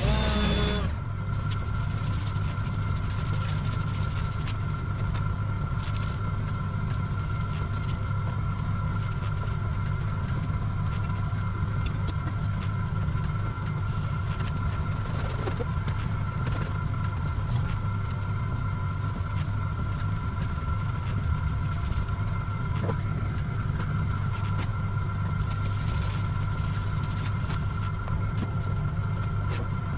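An engine running steadily, a low hum with a thin high whine over it. A louder burst lasts about a second at the very start, and faint light scrubbing sounds come and go.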